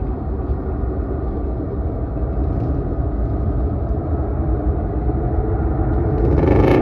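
Distant rumble of a Boeing 737 MAX 9's CFM LEAP-1B jet engines as the airliner taxis on the runway, growing gradually louder, with a brief hissing rush near the end.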